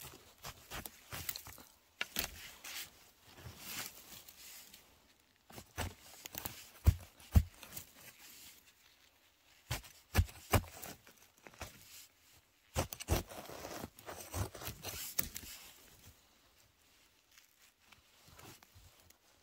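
Footsteps and rustling in forest-floor litter: irregular crunching and crackling, with several heavier thumps in the middle stretch.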